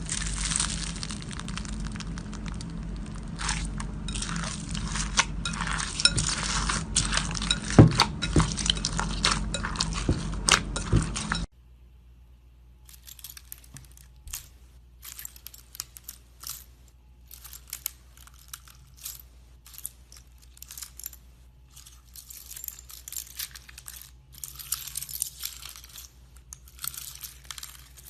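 Slime being squeezed and worked by hand, giving dense crackling and clicking. About eleven seconds in it cuts abruptly to a quieter clip of sharper, sparser clicks and crackles.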